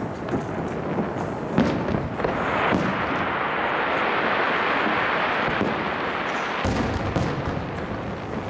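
Aerial firework shells bursting in a string of sharp booms, some close together. Between about two and six seconds in there is a stretch of dense steady hiss.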